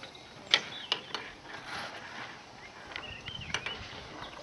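Birds chirping over a low steady background, broken by a few sharp clicks and knocks, the loudest near the start and one more about three and a half seconds in.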